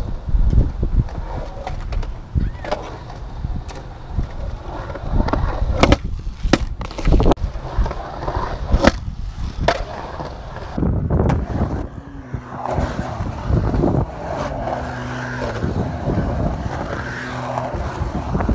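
Skateboard wheels rolling through a concrete pool-style bowl with a low rumble, broken by several sharp clacks of the board and trucks hitting the coping and landing. In the second half a steady low drone runs underneath.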